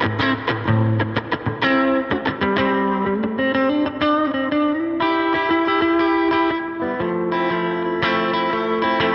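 Electric guitar played through effects: quick picked notes at first, then a note that glides up in pitch about three seconds in and is held for a few seconds before the picking resumes.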